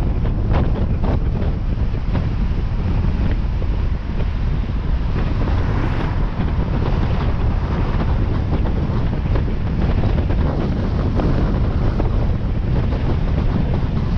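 Steady, loud wind buffeting the microphone of a camera on a moving vehicle, over a low rumble of road noise.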